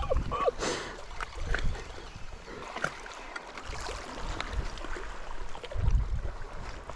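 Sea water lapping at a rocky shore with wind on the microphone, a few faint clicks, and a brief low rumble near the end.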